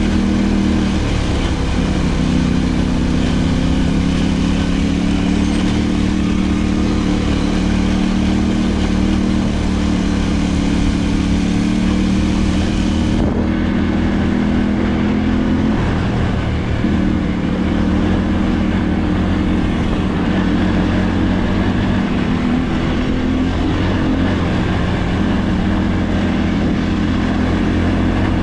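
Off-road enduro motorcycle engine running while riding, its pitch holding fairly level with a few brief dips and recoveries.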